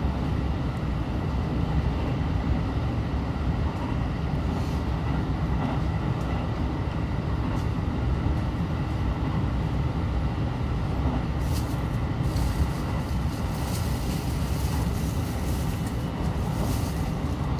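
JR Central 313 series electric train running, heard from inside the car: a steady rumble of wheels on rail. A thin high hiss comes and goes in the second half.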